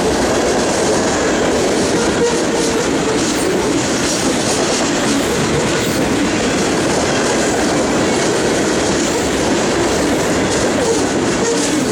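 Union Pacific mixed freight train rolling steadily past, its cars' wheels clacking over the rail joints.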